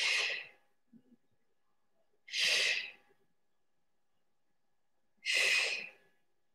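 A woman breathing out hard through the mouth three times, one every two to three seconds: forceful exhalations on the effort of each rep of a dumbbell press.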